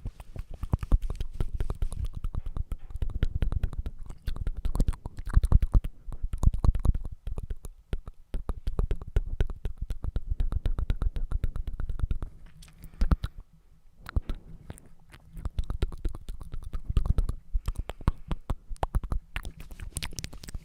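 ASMR mouth sounds right at the microphone: rapid wet clicks and smacks over a low rumble, easing off briefly a little past halfway.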